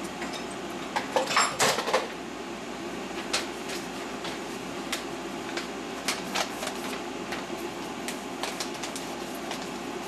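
Steady hum of a Fadal vertical machining center standing idle, with scattered sharp clicks of keys being pressed on its CNC control panel. A louder cluster of knocks comes about a second in.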